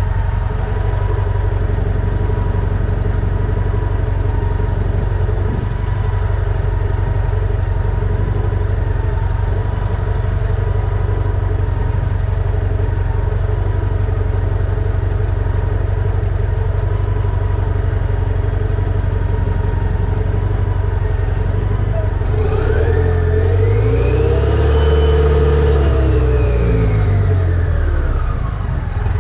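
1998 New Flyer C40LF transit bus's natural-gas engine idling steadily, then revved once about three-quarters of the way through, climbing to a peak and falling back to idle shortly before the end.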